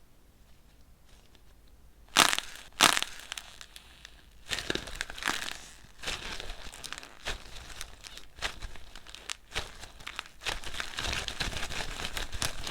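Dried, crispy lightweight clay being crushed and cracked: two sharp cracks about two seconds in, then a long run of crunching and crackling.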